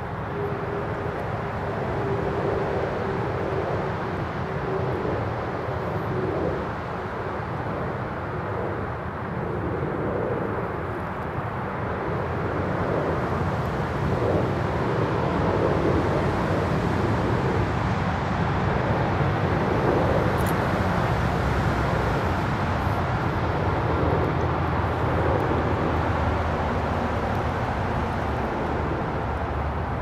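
Steady low engine rumble from distant motor traffic, swelling to its loudest around the middle and easing off slightly towards the end. A faint steady hum sits under it for the first few seconds.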